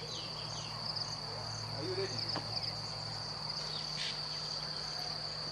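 Steady high-pitched insect trilling, like crickets or cicadas, with a few short chirps over it.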